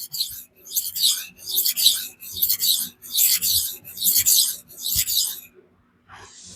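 Magnamax steel knife blade stroked across a 400-grit Cheefarcuut vitrified diamond stone: about seven sharpening strokes, a little more than one a second, stopping about five and a half seconds in. The coarse stone cuts fast, grinding the convexity out of the edge.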